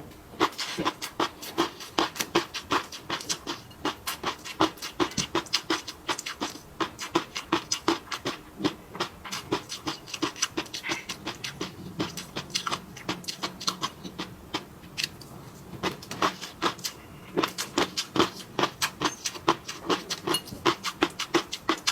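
Close-miked chewing and mouth smacking: rapid wet clicks and smacks, several a second, with no break.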